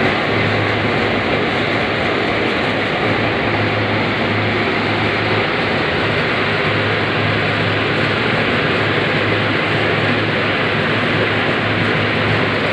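Steady, loud din of polyester popcorn production machinery running, with a low hum underneath.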